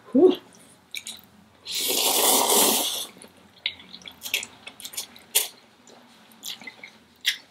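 Someone eating spicy noodles: one loud, long slurp of about a second, about two seconds in, then scattered wet mouth clicks of chewing.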